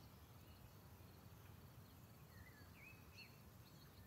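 Near silence: faint outdoor ambience with a low hum and a few small bird chirps scattered through it, clustered about two to three seconds in.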